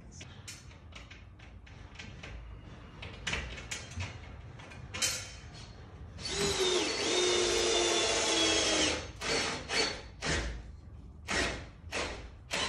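Cordless drill driving a screw up through a metal ceiling strut into a rafter: one steady run of about three seconds about halfway through, then several short bursts. Light knocks and clicks of handling before the run.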